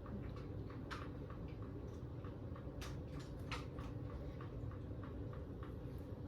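Faint ticking clicks, about three a second and slightly uneven, over a low steady hum.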